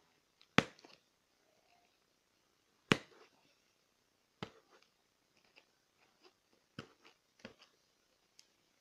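Sharp clicks and taps as a hand tool picks and cuts at strong packing tape on a cardboard shipping box. Two loud clicks come about half a second and three seconds in, a third about four and a half seconds in, then fainter ticks.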